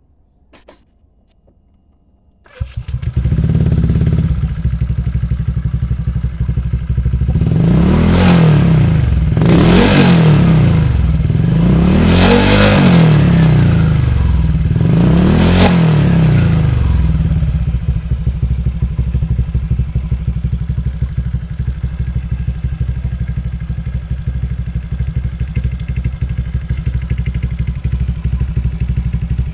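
Honda Vario 125 scooter's single-cylinder engine through a CMS-copy aftermarket exhaust, starting about two and a half seconds in and settling into an idle. It is revved four times in quick succession, each rev rising and falling, then idles steadily.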